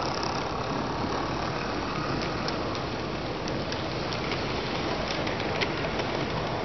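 HO-scale model train running past, an Amtrak locomotive hauling passenger cars, its wheels giving light, irregular clicks over a steady rushing hiss.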